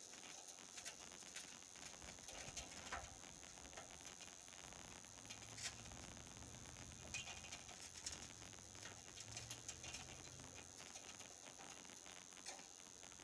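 Faint scattered clicks and light taps over a steady hiss, with a faint low hum from about halfway through until near the end.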